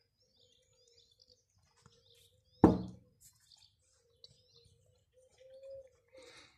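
Small birds chirping faintly and intermittently, with one sharp thump about two and a half seconds in as the loudest sound.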